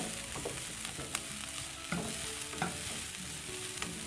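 Chopped onion and garlic sizzling in oil in a wok while a spatula stirs and scrapes them around, with a few sharp knocks of the spatula against the pan.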